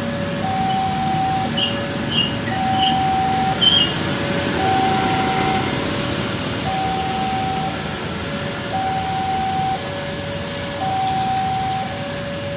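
Railway level-crossing warning siren sounding a two-tone signal, a higher tone then a lower one, repeating about once every two seconds over road traffic. It warns that a train is approaching and that the crossing gates are about to close. A few short high chirps sound about two to four seconds in.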